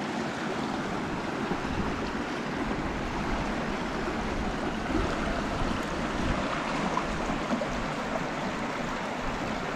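Small shallow moorland stream running over stones and through riffles: a steady rush of water.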